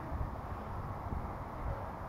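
Steady low background rumble of ambient outdoor noise, with no distinct event.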